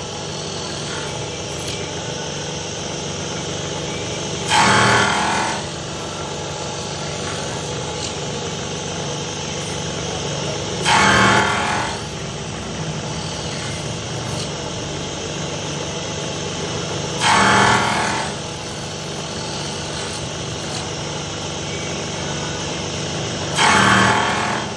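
Special-purpose milling machine running with a steady hum, its disc cutter cutting into the workpiece four times, each cut loud and about a second long, roughly six seconds apart.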